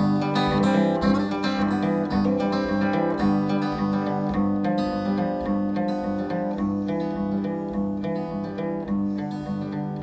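Acoustic guitar played solo, an instrumental passage of picked and strummed chords.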